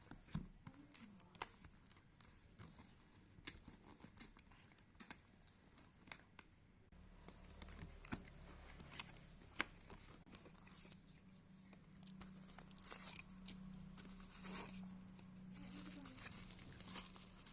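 Packaging of a camera being unboxed: plastic and paper crinkling and tearing, with scattered sharp clicks and taps. A faint low hum joins about seven seconds in.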